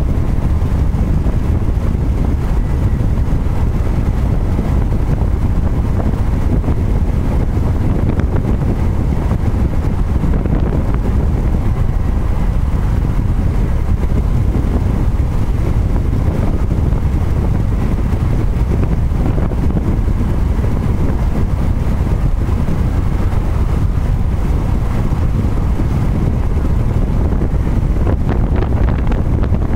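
Steady low rush of wind buffeting the microphone, mixed with the road noise of a car travelling at highway speed.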